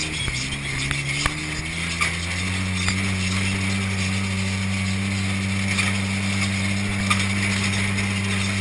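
Side-by-side off-road vehicle's engine running while driving over sand, heard from on board. The note starts low, climbs about two seconds in, then holds steady. Occasional sharp clicks and rattles come from the vehicle.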